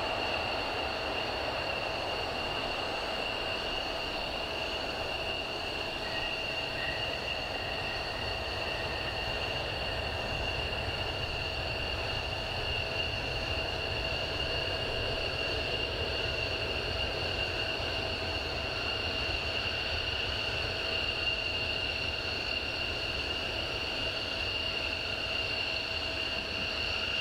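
Boeing KC-767J tanker's turbofan engines running after landing: a steady high-pitched whine over a low rumble, holding the same pitch and level throughout.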